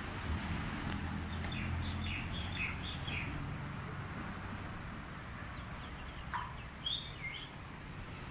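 Small birds chirping in short, high notes: a run of chirps in the first few seconds and a few more near the end. Under them is a steady rushing background, with a low rumble that fades after the first few seconds.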